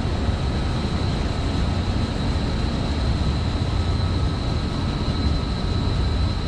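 Steady low rumbling noise with a thin, constant high-pitched whine over it: rooftop background of wind and running equipment.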